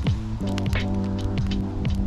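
Background music with held low notes, bass notes that slide downward, and light percussive hits.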